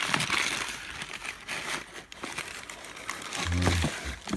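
Plastic air-cushion packing film and paper wrapping crinkling and rustling as they are handled and pulled apart, with a short low hum near the end.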